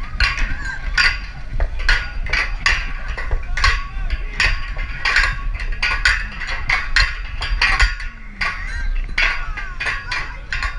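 Metal hand rings clanking against the pegs of an overhead obstacle beam as climbers swing along it: a run of sharp, irregular clinks, about two a second, over crowd chatter.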